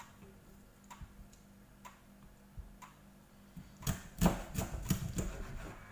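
Knife cutting raw chicken on a cutting board: a few light taps, then a cluster of sharper knocks about four seconds in.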